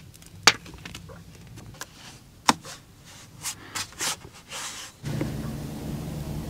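Scattered sharp clicks and knocks, two loud ones about half a second and two and a half seconds in, with softer rustling between them; a steady low hum starts about five seconds in and cuts off suddenly near the end.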